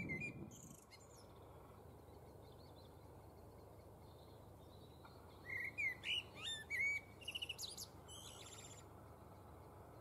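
Male common blackbird singing one phrase about five and a half seconds in: a few fluty whistled notes, then a high squeaky twitter, about three seconds in all. A low rumble fades out in the first second.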